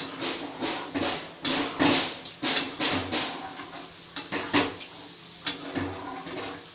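Flat steel spatula scraping and clanking against a steel kadai as fried rice is stirred and turned, an irregular run of sharp knocks and scrapes that thins out near the end.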